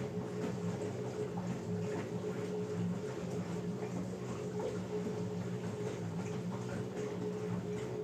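LG Direct Drive front-loading washing machine running a wash cycle: the motor hums steadily as the drum turns, with laundry tumbling and splashing softly inside at irregular moments.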